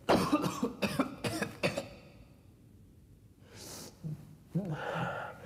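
A man coughing hard in a quick run of harsh coughs, then a sharp breath in and low, strained voice sounds near the end, as from someone in physical distress.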